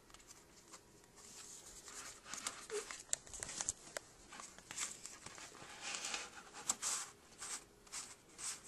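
Paper pages of a handmade book rustling as they are turned and handled, with short clicks and taps of paper and card.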